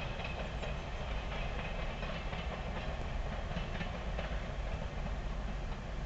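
Narrow-gauge (891 mm) electric multiple unit rolling slowly away over snowy points: a steady low rumble of wheels on rail with a few faint clicks from the rail joints.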